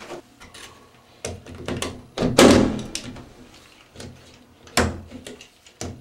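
Impact punch-down tool clacking on a 66 block, seating Cat5e wire pairs into the metal clips: a few separate sharp knocks, the loudest a little over two seconds in.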